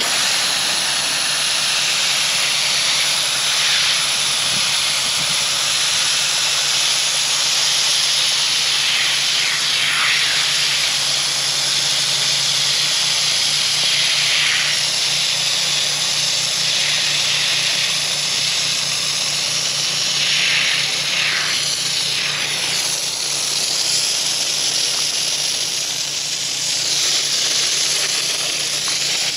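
IK Foam Pro 2+ hand-pump pressure sprayer with the dry pickup tip fitted, spraying thick foam in a steady hiss with slight swells in strength.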